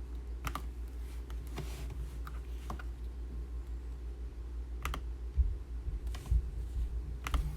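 Computer keyboard keys clicking in scattered strokes, a second or so apart, over a steady low hum, with two dull low thumps about two-thirds of the way through.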